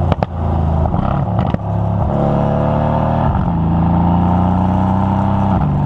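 Mercedes-AMG C63's twin-turbo V8 heard at the tailpipes through its stock AMG performance exhaust, accelerating under load. A few sharp pops come in the first second and a half. The engine note climbs, then drops at an upshift about three seconds in and again near the end.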